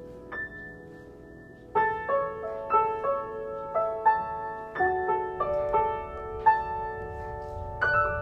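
Background music: a gentle piano melody of single struck notes, a lone note near the start and then a steady run of about three notes a second from about two seconds in.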